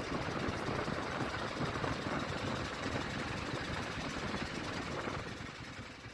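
Small ketek motorboat's engine running steadily, fading out near the end.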